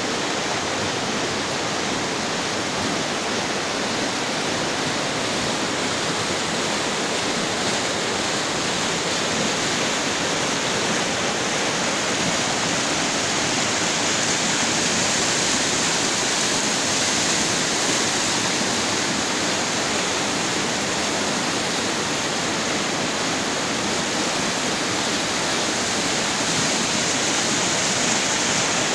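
Fast, shallow mountain river rushing over a bed of boulders: a steady, loud rush of white water.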